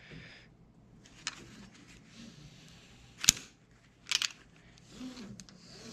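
Climbing hardware, the Taz Lov3 rope device and its carabiner, clicking as it is handled on the rope: a faint click about a second in, a sharp loud click a little past three seconds, then a quick double click about a second later.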